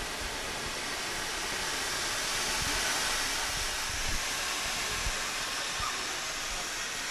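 Steam hissing steadily as it escapes from a historic steam engine's boiler, with a few brief low thumps.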